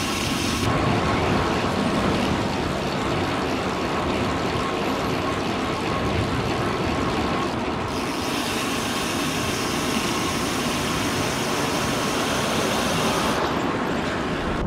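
Steady road traffic noise: motor vehicles passing on a road, heard from a moving bicycle.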